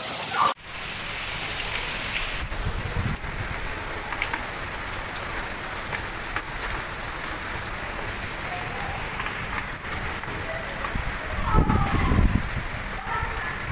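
Heavy rain pouring down in a strong windstorm, a steady hiss with the wind buffeting the microphone in low rumbling gusts twice, the stronger one near the end.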